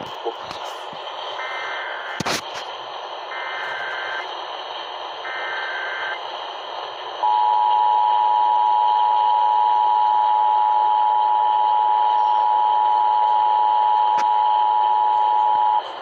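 Emergency Alert System test received over AM radio: three short screeching data bursts of the SAME header, then the steady two-tone attention signal for about eight and a half seconds, over constant static hiss with a crackle or two.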